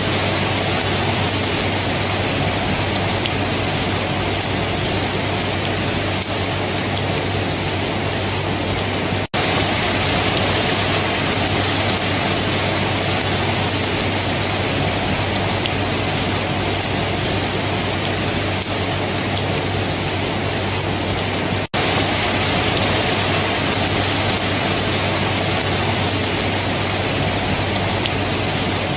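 Steady, heavy rainfall making a dense, even hiss with no thunder. The sound drops out for a split second twice, about 9 and 22 seconds in, typical of the joins in a looped recording.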